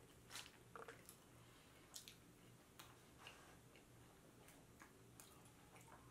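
Near silence broken by about seven faint, irregular wet clicks and smacks of a mouthful of dipped Italian beef sandwich being chewed, with a brief crinkle of the paper wrapper as the sandwich is set down near the start.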